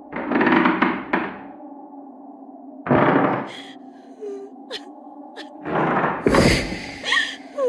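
Horror-style sound design: a steady, eerie low drone with three loud, dull thuds that each ring on for about a second, near the start, about three seconds in and about six seconds in.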